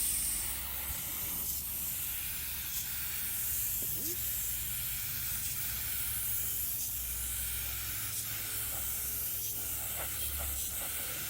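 Primer being sprayed onto a repaired car bumper: a steady hiss of air and atomised paint, slightly louder in the first second, over a low hum.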